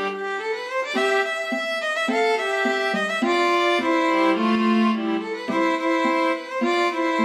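Background music: a violin playing a melody of short, changing notes.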